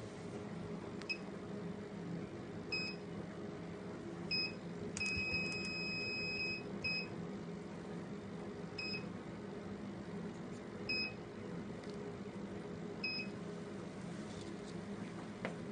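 Touchscreen of a fractional laser machine beeping as its buttons are pressed: eight short beeps at the same pitch, spaced a second or two apart, one of them held for about a second and a half about five seconds in. A steady low hum runs underneath.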